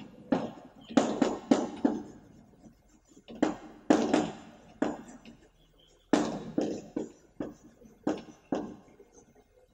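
Chalk writing on a blackboard: irregular clusters of short taps and scrapes as letters are written, with a pause of about a second and a half after the first cluster.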